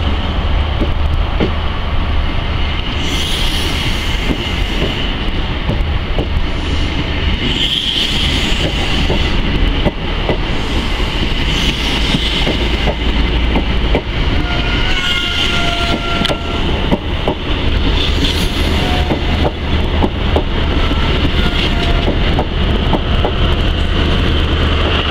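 Coaches of a Class 43 HST rolling past as the train pulls out: a steady rail rumble with wheels clicking over rail joints, and a few brief high squeals from the wheels about fifteen to eighteen seconds in.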